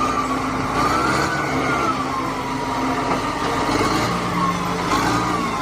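Truck engine sound running steadily, with a thin high whine that wavers slowly up and down over it.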